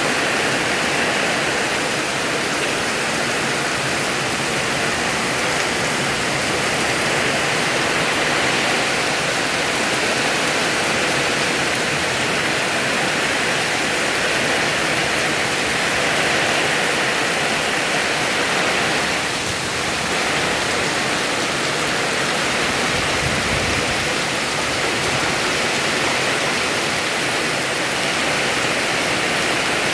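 Heavy rain pouring down steadily in a downpour mixed with wind, with a brief low rumble about two-thirds of the way through.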